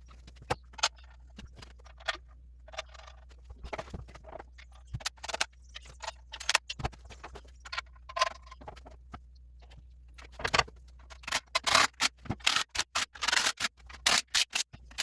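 Irregular metallic clicks, clinks and knocks of tools and parts handled during a transmission installation, over a steady low hum. The clatter gets denser about eleven seconds in.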